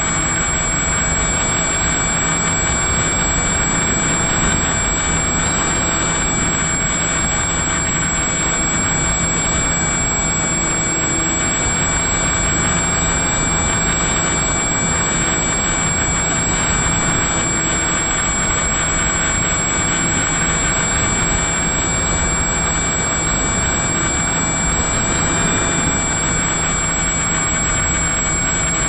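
Electric motor and propeller of an FPV model aircraft in flight, a steady high whine over a loud rush of wind noise.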